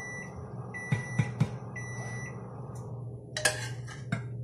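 A kitchen appliance beeps steadily, a high electronic beep about once a second, stopping a little past two seconds in. Over it a spoon knocks sharply against steel pots a few times, and near the end there is louder scraping and clatter as carrots are tipped from a small steel pot into a pot of milk.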